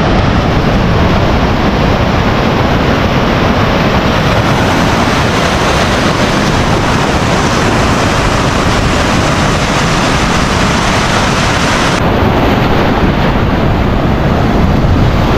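Strong wind buffeting the camera microphone over breaking ocean surf: a loud, steady rushing noise. It cuts in suddenly and stops suddenly, and turns brighter and hissier about twelve seconds in.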